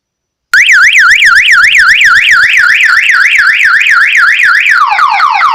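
Car alarm siren, set off by shorting the door-trigger wire to ground, starting about half a second in and very loud: a fast warbling tone rising and falling about four times a second, switching near the end to a quick run of falling sweeps.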